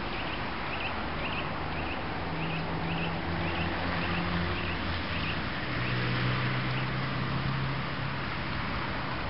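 Street ambience: a vehicle engine humming low, growing louder about six seconds in, with a small bird chirping about twice a second through the first five seconds.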